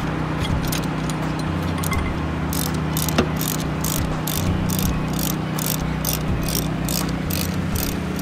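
Ratchet handle on a manhole-cover opener's screw jack clicking as it is worked back and forth to jack up a cast-iron manhole cover. A few faint clicks come first, then about three a second from a couple of seconds in, over a steady low hum.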